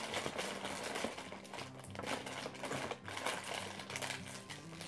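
Plastic blind-bag packets crinkling and rustling as hands rummage through a bin of them, with background music underneath.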